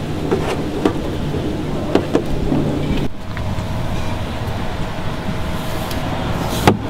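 A few sharp clicks and knocks from a clear braided vinyl hose being worked onto a fitting by hand, the loudest near the end, over a steady background rumble. A faint steady hum joins the rumble about three seconds in.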